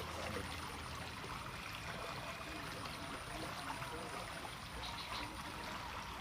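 Water in a small ditch running with a steady, even rush.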